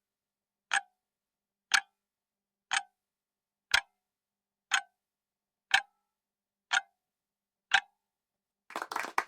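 Countdown timer sound effect: a clock tick once a second, with dead silence between the ticks. Near the end, a dense patter of clapping comes in.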